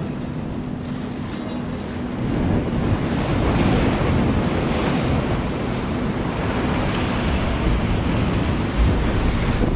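Sea waves surging and washing against the concrete tetrapods of a breakwater, with wind rumbling on the microphone. The wash swells up about two and a half seconds in and stays full.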